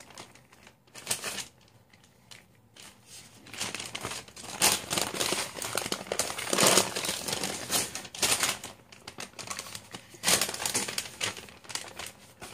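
Parchment paper crinkling and rustling in irregular bursts as hands lift and fold it over a flattened meatloaf to roll it up, with a quiet stretch about two to three seconds in.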